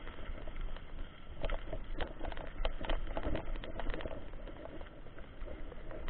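Mountain bike rolling along a gravel dirt road: steady tyre noise with a run of rattling clicks from bumps, thickest around the middle.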